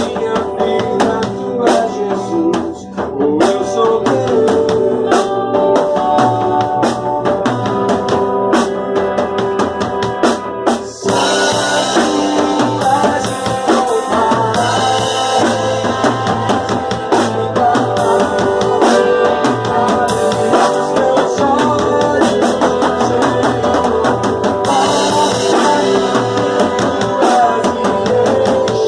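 Live band playing with a drum kit and guitar, drum hits keeping a steady beat. About eleven seconds in the music breaks off for a moment, then comes back fuller with heavier cymbals.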